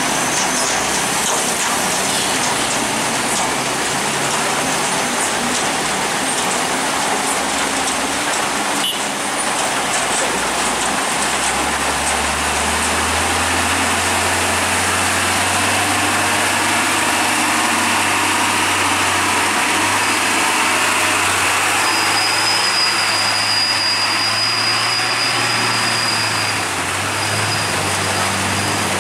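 Heavy rain hissing steadily on the road, with a heavy truck's diesel engine pulling through the hairpin as a low steady drone that comes in about a third of the way through. A thin high whine sounds briefly near the end.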